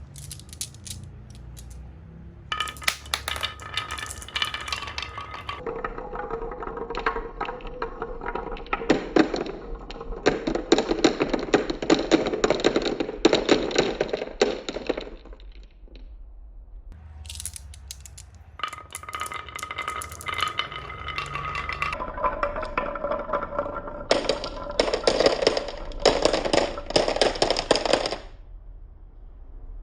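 Marbles rolling and clattering down a wooden marble run in two long, dense runs of rapid clicks and rolling rumble, with a short lull between them.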